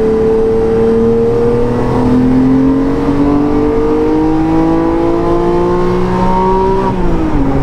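Porsche 911 GT3's 4.0-litre flat-six, fitted with a BRE straight-through exhaust, revving hard through a gear, its pitch climbing steadily for about seven seconds. Near the end the pitch drops at a manual upshift taken short of 8,000 rpm. Heard from a car driving alongside.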